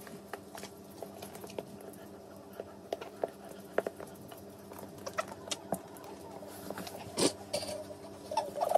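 Small scattered clicks and scratches of a tiny puppy's paws and claws scrabbling on a wooden floor and over a big dog, over a steady low hum; a few louder clicks come in the second half.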